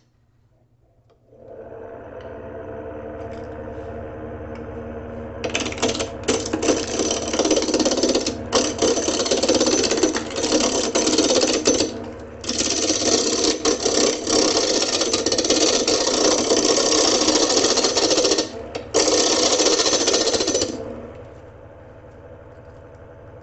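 Wood lathe motor starting up and running with a steady hum. Then a turning tool cuts into the spinning log: a loud rough scraping with irregular knocks from the uneven wood, broken off briefly twice. The cut stops near the end, leaving the lathe running.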